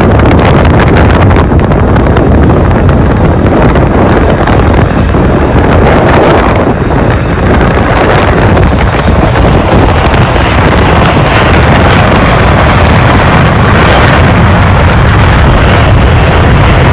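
A Boeing 727's three Pratt & Whitney JT8D turbofans at takeoff power during the takeoff roll, extremely loud and steady, mixed with heavy wind buffeting on the microphone.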